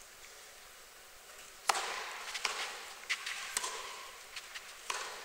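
Tennis serve and rally: a loud racket strike on the ball a little under two seconds in, then about four more sharp hits a half-second to a second apart, each with a short echo off the arena.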